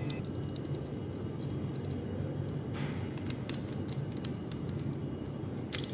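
Small clicks and scrapes from a screwdriver and a wire being fastened into a miniature circuit breaker's screw terminal, over a steady low hum. The clicks come irregularly, with a couple of stronger ones about three seconds in and near the end.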